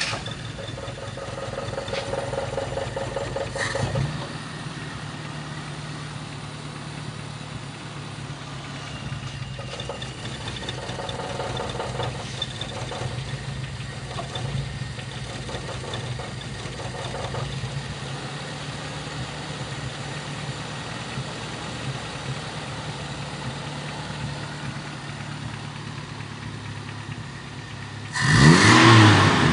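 Toyota Kijang's carbureted four-cylinder petrol engine idling steadily under the open bonnet, then revved up sharply once near the end. The engine is being diagnosed for rough running ('pincang', a misfire).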